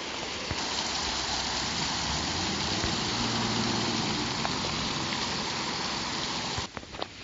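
Water rushing and splashing steadily as it pours from the water-powered gristmill's outlets into the race below. The rush drops away suddenly near the end.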